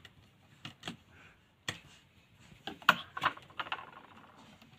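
Irregular light clicks and taps of a screwdriver and wire ends against a plastic ceiling rose while the neutral wires are looped together, with a sharper click about three seconds in.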